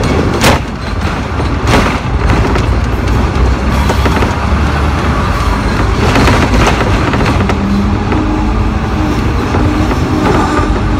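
Hong Kong double-decker tram heard from on board while running along street track, with a steady low rumble of wheels on rails. There are two sharp knocks in the first two seconds as the wheels cross a track junction, and a low hum comes in near the end.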